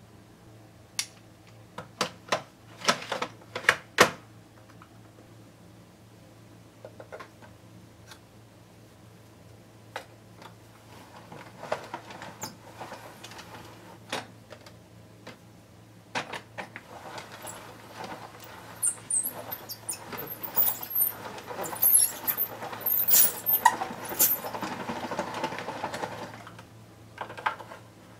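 Small plastic hand-cranked ramen noodle machine being turned, its plastic gears and cutting rollers rattling and clicking as a dough sheet is fed through and cut into noodles, a dense clatter through the second half. Earlier come a few sharp knocks from handling the cutting board and machine.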